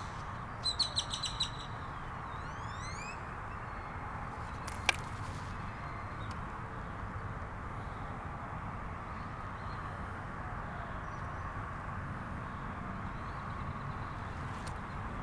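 A bird chirps a quick run of about six notes near the start, then a few rising chirps, over a steady background hiss. A single sharp click comes about five seconds in.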